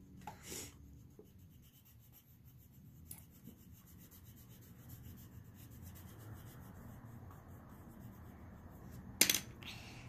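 Black wax crayon rubbing back and forth on paper, colouring in an area with a faint steady scratching. One sharp tap near the end.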